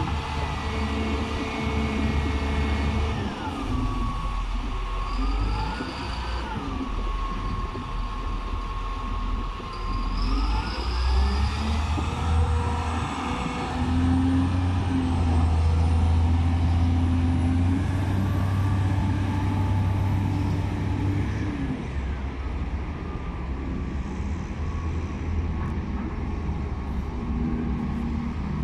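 Caterpillar 950H wheel loader's diesel engine running and revving while it works its bucket hydraulics, with a whine that drops and rises in pitch several times. About halfway through the engine revs harder as the loader drives off, then it gets somewhat quieter as it moves away.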